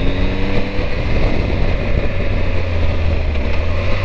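Triumph Tiger 1200's three-cylinder engine running at a steady pace under way, a low drone with road and wind noise over the microphone.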